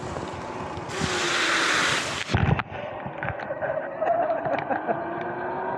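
Sur-Ron X electric dirt bike on a wet road. A loud hiss of the tyres through standing water lasts about a second and a half and cuts off, then come a couple of hard thumps as the bike bumps up onto the sidewalk. After that it rolls on more quietly with a faint steady whine.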